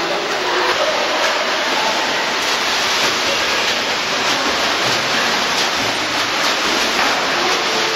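Swimming-pool water churning and splashing as a swimmer swims through it: a steady rush of water noise.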